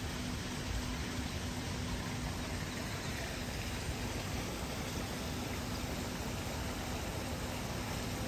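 Steady outdoor ambience by a swimming pool: a continuous rushing noise with a low rumble underneath and a faint steady hum.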